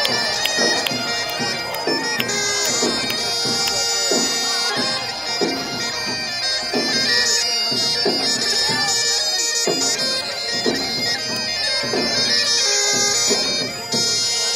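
Bagpipe music: a steady drone with a melody gliding over it.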